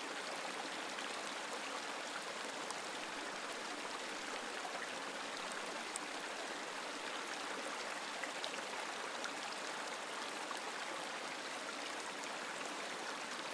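Steady rush of running water, even and unbroken, with a few faint ticks.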